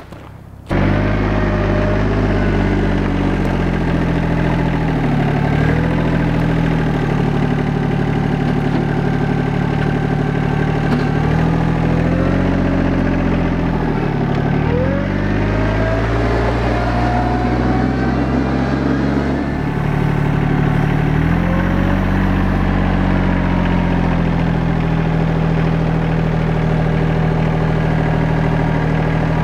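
RK compact tractor's diesel engine running steadily close by, cutting in suddenly under a second in. Its pitch dips and recovers several times as the front loader is worked.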